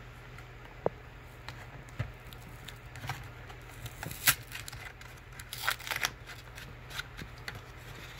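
Cardboard candy box being pried open by hand: scattered clicks and short scrapes and tears of paperboard, the sharpest about four seconds in and a cluster about six seconds in.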